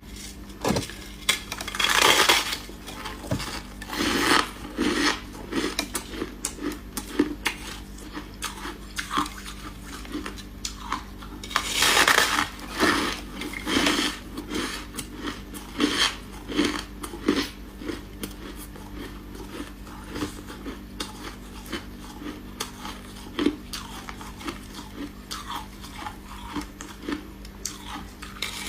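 Chunks of freezer frost being bitten and chewed close to the microphone: a long run of sharp crunches and clicks, with louder bursts of crunching about two seconds in and again around twelve seconds.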